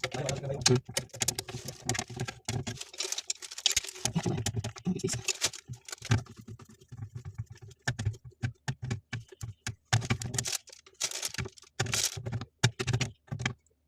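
Irregular clicking and tapping of hands working small hard parts, such as screws, a plastic cover or fittings, during water heater installation work, with a faint steady hum underneath.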